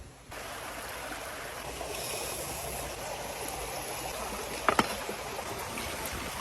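Steady rushing, water-like noise that comes in abruptly just after the start, with two sharp clicks a little before five seconds in.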